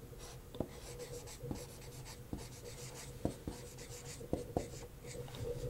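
Marker pen writing on a whiteboard: faint scratching strokes of the tip with several light ticks.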